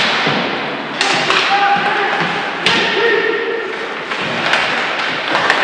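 Ice hockey play in a rink: several sharp thuds of the puck and players hitting the boards, over steady rink noise and shouting voices.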